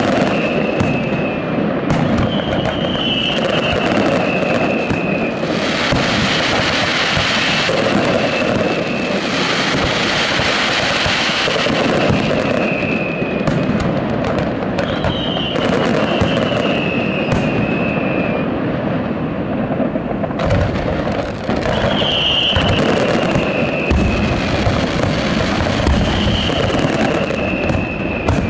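Aerial fireworks display by Pirotecnia Valecea: shells bursting one after another in dense bangs and crackles. A high falling tone comes back every few seconds.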